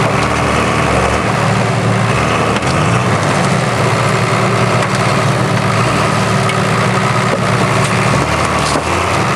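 Modified Suzuki Samurai off-road buggy's engine running steadily while its front wheel rests on the crushed bonnet of a car.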